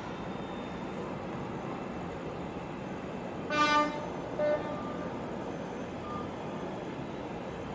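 A horn gives a short toot about three and a half seconds in, then a briefer second toot, over a steady background rumble.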